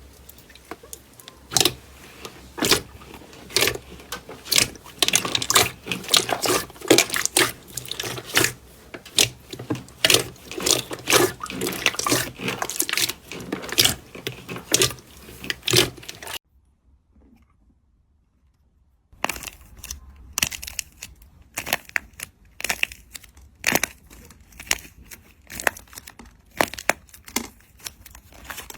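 Slime being squeezed and poked by hand, giving rapid strings of sticky pops and crackles. The popping stops for about two and a half seconds a little past halfway, then resumes sparser and quieter.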